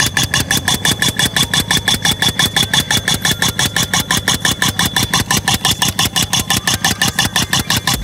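A 2-inch pneumatic piercing tool (boring 'missile') driven by compressed air, hammering through the soil with a fast, even pounding of roughly seven or eight blows a second, and a steady high whine over it.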